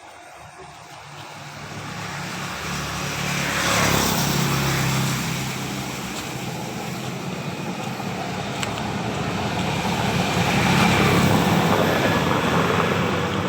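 A motor vehicle's engine running with a rushing noise over it. It grows louder over the first few seconds, eases a little, and swells again about ten seconds in.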